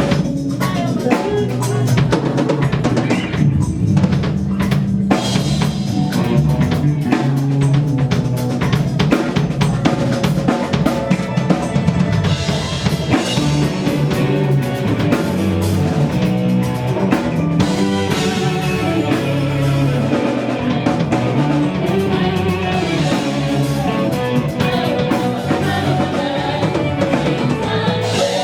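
Band music led by a drum kit, its kick and snare hits sharp and steady over a strong bass line, with no singing.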